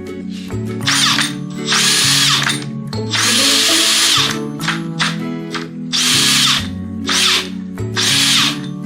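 An electric drill driver running in six short bursts, the longest about a second, with a high motor whine in each, turning an ice auger. Background music plays underneath throughout.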